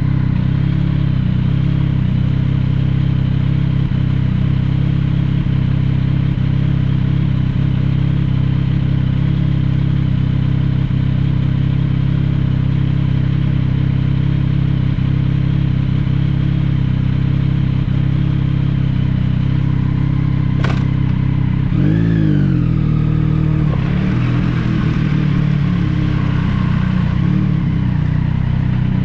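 Yamaha MT-09 SP's inline-three engine running through an Akrapovic exhaust. It holds a steady note for most of the time, with a short click about two-thirds of the way through. Just after the click comes a quick rev that rises and falls in pitch, and the engine note keeps changing after that.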